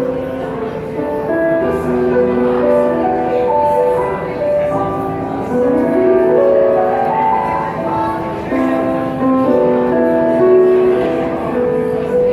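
Live band playing the instrumental introduction to a song: held, sustained chords with a rising run of notes about halfway through, before any singing.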